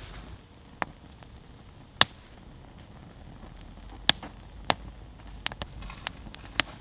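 Wood fire on a birch Swedish candle log crackling, with about eight sharp pops from the burning split kindling, the loudest about two and four seconds in.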